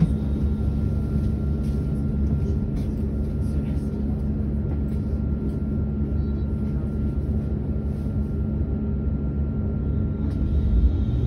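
Solaris Urbino 18.75 electric hydrogen fuel-cell articulated bus standing at a stop: a steady low electric hum with a faint constant whine.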